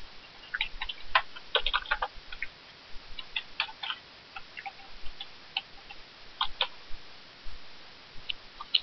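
Computer keyboard keys clicking as a few words are typed, in short irregular runs of keystrokes with pauses between them.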